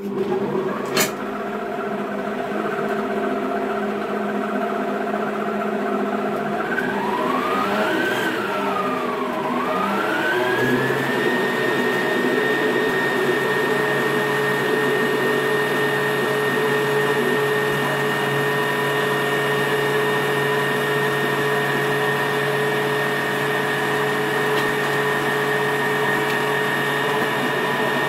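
Klarstein stand mixer's blender attachment switched on and blending spinach, oats and water into a green crepe batter, with a knock about a second in. The motor's whine swings up and down in pitch about a third of the way in, then settles into a steady, higher hum.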